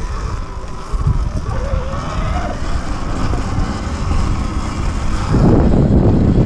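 Sur-Ron X electric dirt bike riding along a dirt and leaf trail: wind buffeting the microphone over the rumble of the tyres, with a thin motor whine rising in pitch around two seconds in. The rough rumble grows louder from about five seconds in.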